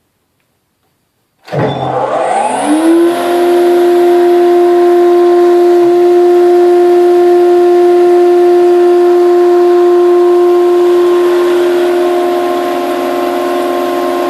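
Knapp ProfitT AD410 planer/jointer's three-phase motor and cutter block starting about a second and a half in, whining up to speed within a second or two, then running loud and steady. Near the end the pitch begins to fall as it runs down.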